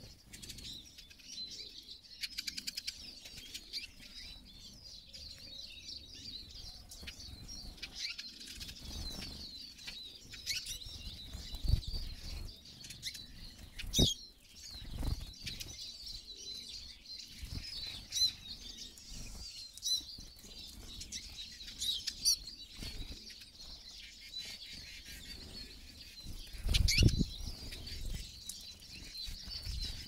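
A flock of Eurasian siskins twittering continuously at a seed feeder, with whirring wingbeats close by as birds flutter in and land; the loudest flaps come near the middle and again near the end.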